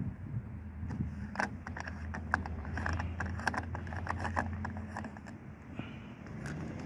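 Plastic fuel filler cap being unscrewed by hand: a run of quick clicks from the cap as it turns, over a steady low hum.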